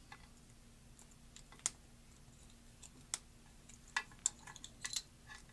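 A few small, sharp metal clicks and taps, spaced irregularly, from tools and fingers working on a pin-tumbler challenge lock while trying to slide its top cap back.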